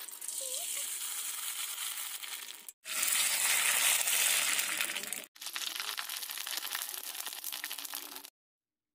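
Hot oil sizzling and crackling as pieces of dough deep-fry in a kadhai. It comes in three stretches, each cut off sharply, loudest in the middle one, and stops abruptly near the end.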